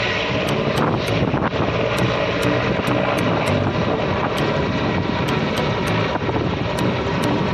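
Aircraft engine noise from an aeroplane in flight, loud and steady.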